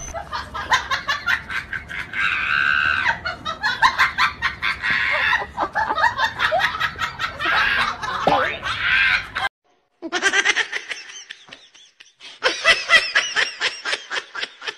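People laughing hard in quick bursts. The laughter breaks off suddenly about nine and a half seconds in, and after a brief silence more laughter with some talk starts again.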